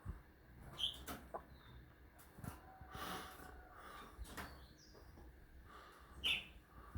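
Two short bird calls, one about a second in and one near the end, with a few faint clicks and knocks in between.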